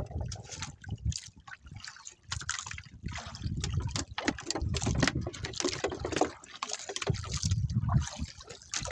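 Sea water sloshing and splashing against the hull of a small outrigger boat, in irregular surges.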